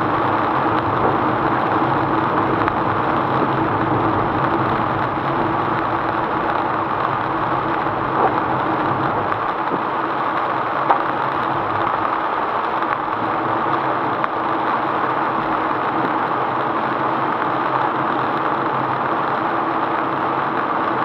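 Steady noise inside a car driving through heavy rain: rain drumming on the roof and windshield mixed with tyre spray and engine noise, with a couple of faint ticks partway through.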